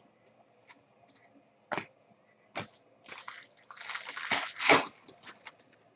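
A few sharp clicks, then about two seconds of crinkling and crackling, loudest near the end: a trading-card pack's foil wrapper being torn open and handled.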